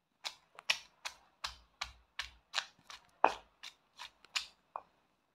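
Stone pestle pounding whole shallots, garlic, chilies, ginger and candlenuts in a black stone mortar (ulekan and cobek), the first blows of grinding a spice paste. About a dozen sharp knocks, two or three a second, stopping just before the end.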